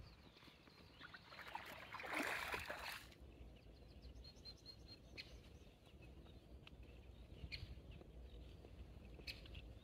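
Quiet outdoor ambience: a brief rustling hiss in the first few seconds, then a low steady rumble with a few faint bird chirps and some soft isolated clicks.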